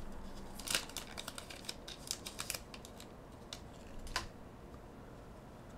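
Dragon Ball Super trading cards being handled and flipped through. There is a run of light, irregular clicks and snaps of card edges that dies away after about four seconds.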